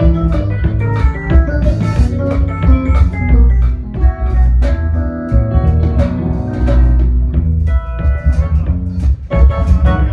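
Live band playing together: drum kit strokes over a heavy bass line, with organ and guitar.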